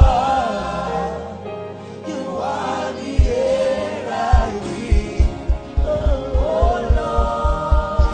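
Gospel worship song sung by a choir over sustained low accompaniment. About three seconds in, a steady kick-drum beat comes in, roughly two beats a second.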